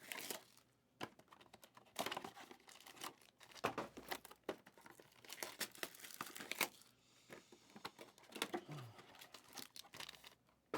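Faint, irregular crinkling and tearing of trading-card packaging, wrappers or shrink-wrap being handled and torn open in short bursts.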